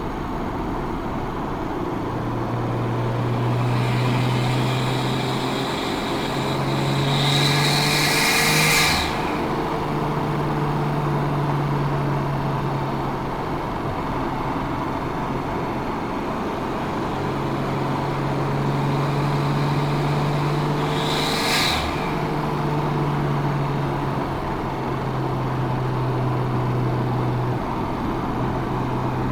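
Nissan Skyline R34 GT-T's 2.5-litre turbocharged straight-six with a full exhaust, running under way as the car is driven through the gears. Twice, about a third of the way in and again about three quarters through, comes a short hiss of turbo air as the revs change.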